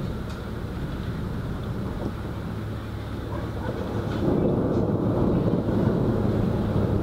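Thunder rumbling, low and drawn out, swelling louder about four seconds in.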